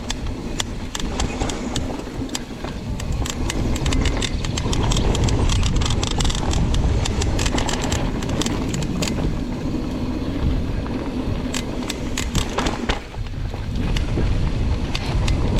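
Wind buffeting the microphone in a heavy low rumble, over a dense run of clicks and rattles from a Trek Remedy mountain bike descending a rough trail at speed. Briefly quieter a little before the end.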